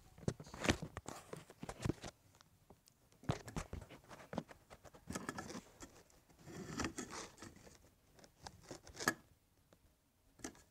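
Camera handling noise inside a gecko tank: irregular clusters of clicks, taps and rustling as the camera is moved about and brushes against the tank's contents, with one sharp click about nine seconds in and quieter near the end.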